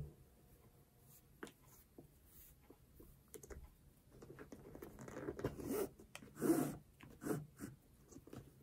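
A flat shoelace being threaded through a sneaker's metal eyelets and pulled through by hand: faint rustling and scraping of the lace, with small taps of handling and a few louder swishes of the lace being drawn through, about halfway in.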